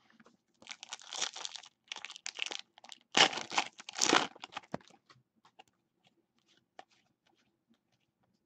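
The shiny plastic wrapper of a football trading card pack being torn open and crinkled by hand, in four tearing bursts over the first few seconds. Then a few faint ticks follow as the cards are handled.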